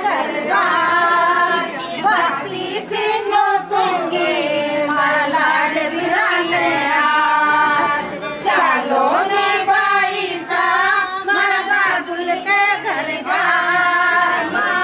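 A group of women singing together, held melodic phrases with short breaks between them.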